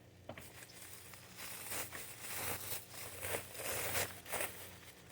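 Packaging being handled and pulled off a portable air compressor: irregular crinkling and tearing that grows louder toward the middle.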